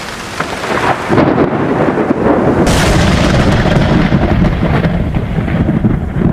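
Thunder sound effect: a loud, rolling crash of thunder that grows louder about a second in and keeps rumbling.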